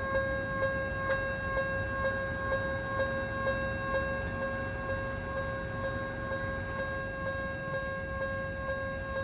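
Japanese railway level-crossing warning alarm ringing continuously, an odd-sounding electronic tone that beats at about two strokes a second over a held ringing note.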